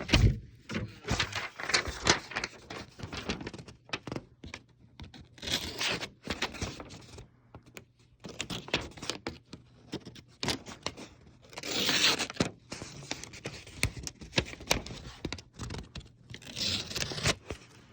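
A CRKT Convergence pocket knife's blade cutting into a thin material, with irregular scraping, tearing and crinkling and small knocks from handling. The blade isn't the sharpest, so it catches and tears as much as it slices.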